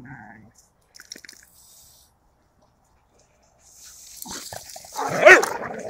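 Dogs play-fighting: a few faint short sounds at first, then scuffling and a loud bark about five seconds in.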